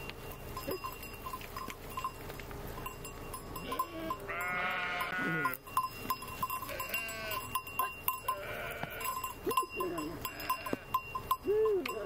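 A flock of sheep bleating, with one long wavering bleat about four seconds in and shorter ones around seven and nine seconds. A small bell clinks again and again in the background.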